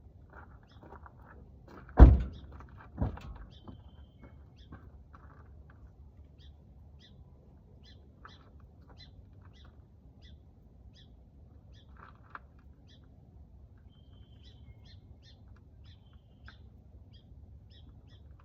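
A loud thunk about two seconds in and a smaller one a second later, followed by a few faint handling clicks. Small birds chirp in short, repeated notes throughout.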